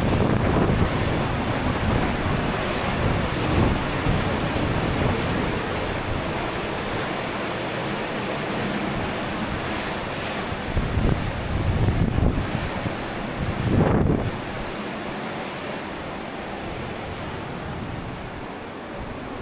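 Sea surf washing steadily, with wind buffeting the microphone in gusts.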